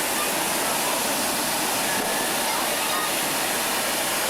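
Steady, even hissing rush, as of a ground firework fountain spraying sparks, with people's voices faint underneath.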